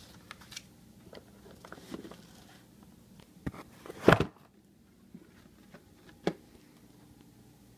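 Cardboard box and its contents being handled: scattered light clicks and handling noise, with a sharp knock about four seconds in as the loudest sound, and smaller knocks around three and a half and six seconds in.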